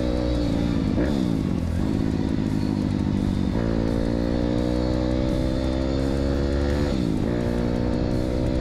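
Single-cylinder 160 cc KLX-type pit bike engine with a four-valve head, riding along a dirt track. The revs fall off over the first couple of seconds, pick up again and climb slowly, dip briefly near seven seconds, then rise again.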